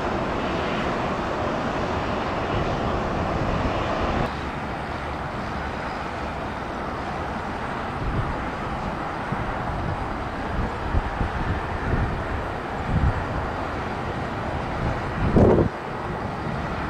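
Steady jet engine noise from a Southwest Boeing 737-700's CFM56-7B turbofans at the start of its takeoff, following an abrupt edit cut about four seconds in. A few low thumps break through, the loudest near the end.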